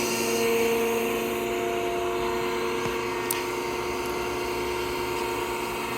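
Air Systems TA-3 Twin Air breathing air compressor running with a steady, even hum.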